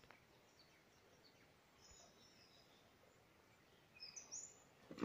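Near-silent bush ambience with a few faint high bird calls, the clearest a short cluster about four seconds in. A single short knock at the very end.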